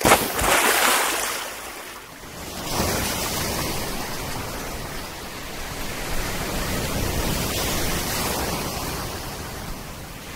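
Sea waves breaking and washing in the surf: a loud rush in the first second that dies away, then another wave builds about three seconds in and the wash runs on.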